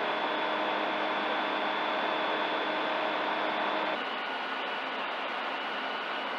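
Ikarus C42 microlight's engine and propeller droning steadily in cruise, with several fixed tones in the sound. About four seconds in, the sound changes abruptly and drops slightly in level.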